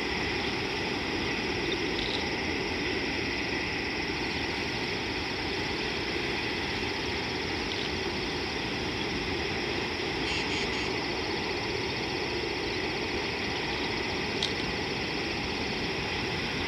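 Steady, even hiss of outdoor ambience with no clear source, with a short high three-note call about ten seconds in and a faint tick near the end.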